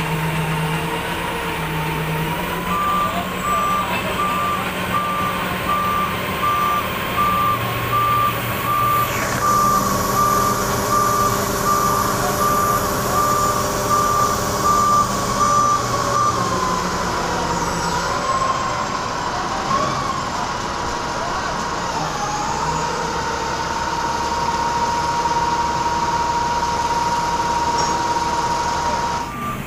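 Tadano mobile crane working: its engine runs under a steady high warning tone that wavers slightly, with an evenly repeating electronic beep over it that stops a little past halfway.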